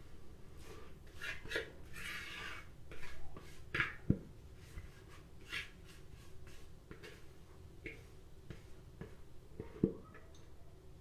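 Spatula scraping thick carrot cake batter out of a plastic mixing bowl into an aluminium tube pan: soft, irregular scrapes with two sharp knocks, one about four seconds in and one near the end.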